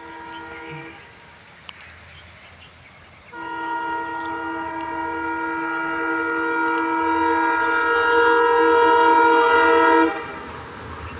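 Diesel locomotive's horn sounding one short blast, then after about two seconds a long blast of some seven seconds that grows louder as the train approaches and cuts off abruptly, with a low rumble of the approaching train underneath.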